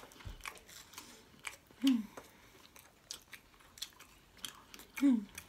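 A person chewing chicken nuggets close to the microphone: scattered wet mouth clicks and smacks, with two short hums falling in pitch, one about two seconds in and one near the end.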